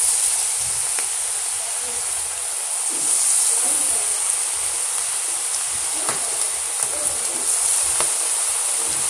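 Cabbage and rice-flour pakora batter deep-frying in hot oil: a steady sizzle with scattered small pops. The sizzle swells as fresh batter goes into the oil, at the start and again about three seconds in.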